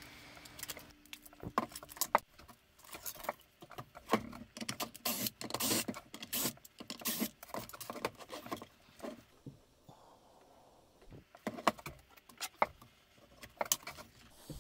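Hard plastic battery-pack case being handled and turned over on a bench: a scatter of short clicks, knocks and rattles, with a quieter pause of a couple of seconds about two-thirds of the way through.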